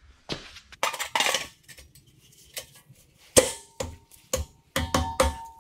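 Metal clanks and taps from a lug wrench and wheel hardware at an RV's rear wheel. A few scrapes come about a second in, a sharp clank about halfway through, then a quick run of ringing metallic taps near the end.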